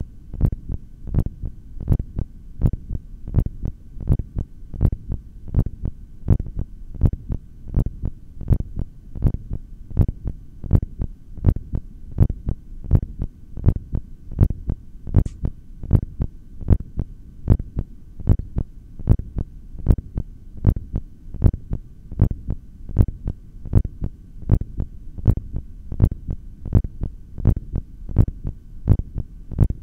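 Human heartbeat heard through a stethoscope, a steady lub-dub about once a second over a low hum, during a long held breath about three minutes into an inhaled breath-hold. A faint click about halfway through.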